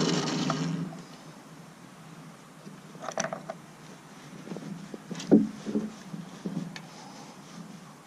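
A loud mechanical noise dies away within the first second, then a few scattered knocks and clinks of tools and metal parts being handled while a water heater is taken apart, the loudest knock a little past the middle.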